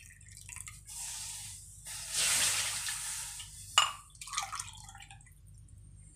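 Milk poured from a ceramic teacup into a metal kadai: a splashing pour of about two and a half seconds, then a sharp tap and a few drips as the stream ends.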